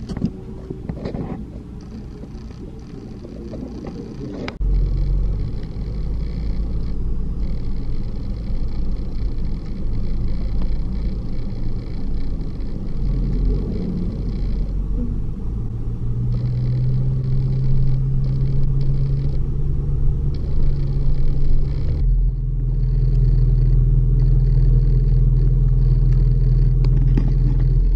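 Low, steady road and engine rumble inside a moving car's cabin, growing louder about four seconds in.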